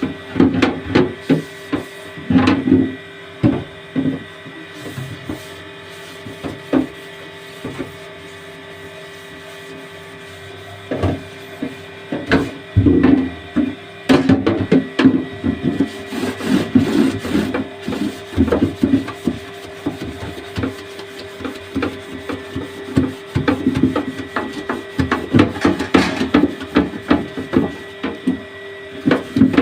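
Handling and scrubbing a refrigerator drawer: repeated knocks and clatters of the drawer being moved and set down, with stretches of rubbing and scraping, over a steady low hum.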